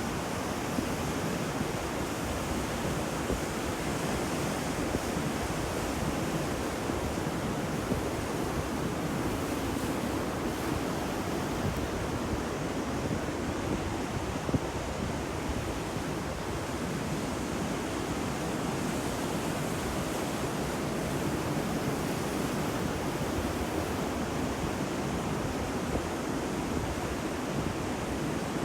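Sea surf washing on a shore as a steady, unbroken rush of water noise.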